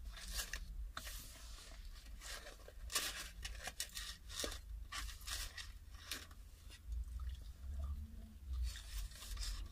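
Close-up crunching and chewing of crispy fried potato chips, in irregular bites.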